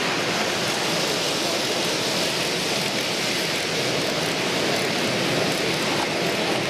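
Steady rushing rattle of an HO scale camera car's wheels rolling along the model railway track, heard close up.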